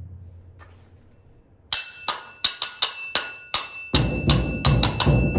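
A handbell rung in quick, uneven strokes, each strike sharp with a steady metallic ring. A little over halfway through, a large rope-laced barrel drum joins with low beats under the bell.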